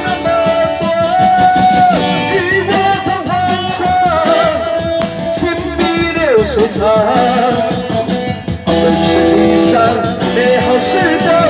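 A singer on a stage sound system holding long notes of a melody over loud amplified instrumental accompaniment, with a falling slide about six and a half seconds in.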